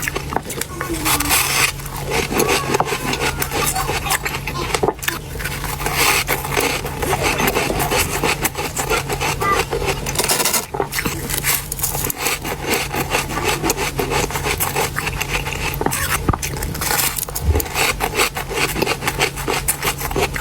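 Close-up chewing of freezer frost and ice: continuous squeaky crunching and grinding between the teeth, a dense run of rough strokes. A steady low hum sits underneath.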